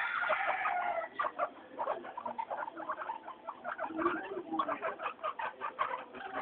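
Guinea pigs calling: one longer call falling in pitch at the start, then runs of short, quick calls, several a second.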